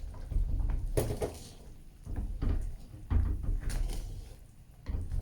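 Kitchen handling noise: a string of dull knocks and clunks, one every second or so, with a few sharper clicks in between.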